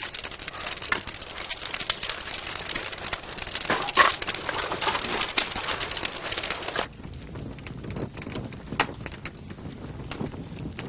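Wood fire burning and crackling in the firebox of a wood-fired climbing kiln (noborigama) during a high-temperature firing. About seven seconds in the dense hiss and crackle drops away suddenly, leaving a lower rumble with scattered pops.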